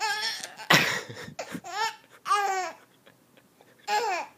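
Baby laughing in several short, high-pitched bursts, with a loud, sharp pretend sneeze from an adult about a second in.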